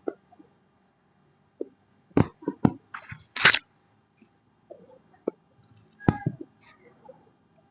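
Handling sounds from a chiropractic adjustment: several separate sharp clicks and pops, with a short rushing noise about three seconds in, the loudest sound.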